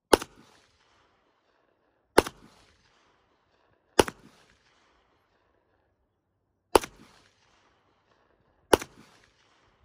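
Five single pistol shots from a CZ Shadow 2 9mm, spaced roughly two seconds apart, each a sharp crack followed by a brief echo.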